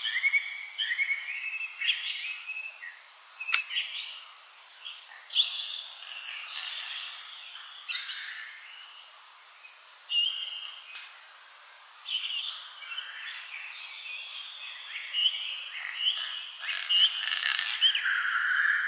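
Distant black grouse lek: a continuous chorus of males' bubbling and calling, many overlapping voices. A single sharp click comes about three and a half seconds in.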